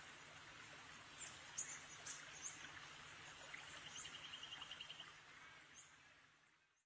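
Faint outdoor ambience: a steady hiss with scattered brief high bird chirps and, a little past the middle, a quick trill of about nine pulses a second. It fades out at the end.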